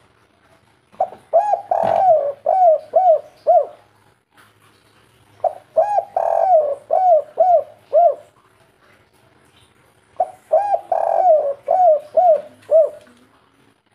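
Spotted dove cooing: three repeated phrases, each a few short coos, a longer coo, then three short falling coos, the 'kuk 3' call type.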